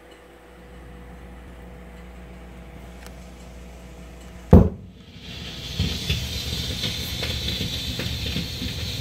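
Low steady hum from the record-player setup, then a sharp thump about halfway as the pickup is set down on a spinning 78 rpm shellac record. It is followed by the hiss and crackle of the record's surface noise in the lead-in groove, with scattered small clicks.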